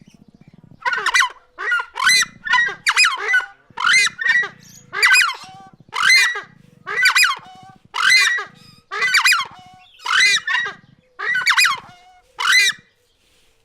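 Goose honking: a long series of loud calls, close together at first and then about one a second.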